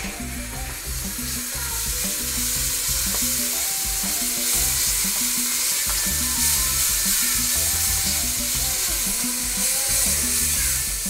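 Chopped onion and chilies frying in a non-stick wok, a steady sizzle, while a spatula stirs them.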